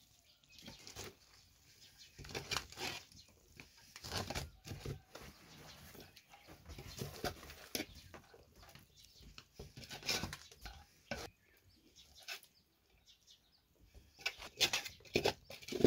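Metal skimmer stirring and tossing noodles in a large aluminium pot, with irregular scrapes and clatters against the pot's side.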